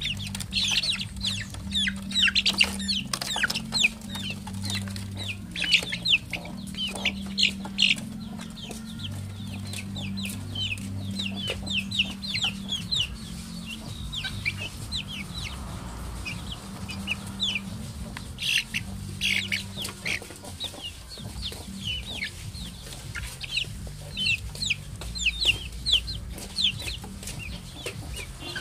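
Young chickens peeping: many short, high, falling chirps in quick succession, thinning out briefly midway.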